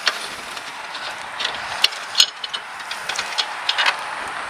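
Scattered small metallic clicks and taps from hand-knob screws being unscrewed from a golf cart's steel seat bracket, over a steady background hiss.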